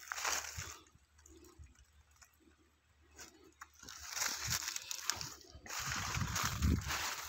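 Footsteps crunching and rustling through dry fallen leaves and twigs, in irregular bursts, busiest in the second half, with a few heavier low thumps near the end.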